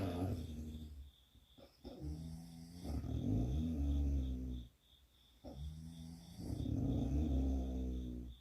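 A person snoring in sleep: two long, low, pitched snores of about three seconds each, with quieter breathing between them.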